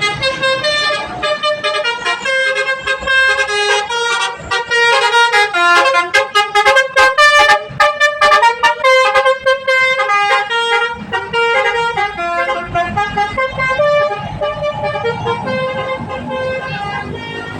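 Bus 'telolet' (basuri) multi-tone horn playing a melody of quick changing notes, fastest and loudest in the middle. A bus engine's low rumble comes back under the horn in the second half.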